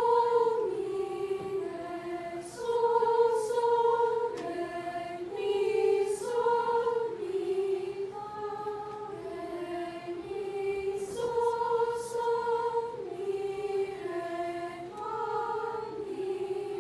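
School choir singing a slow pentachord exercise on solfège syllables: a stepwise melody that moves up and down within a five-note range, each note held about half a second to a second.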